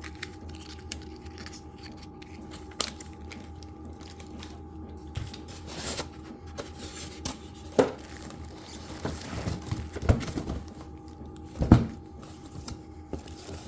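Small metal drill-bit collets clinking and knocking, with packaging rustling, as the parts are unpacked and handled. There are scattered clicks and knocks, the loudest near the end, over a faint steady hum.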